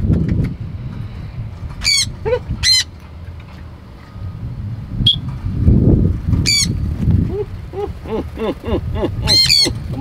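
Sun conure screeching: short, harsh, high-pitched calls a few seconds apart, with two in quick succession near the end.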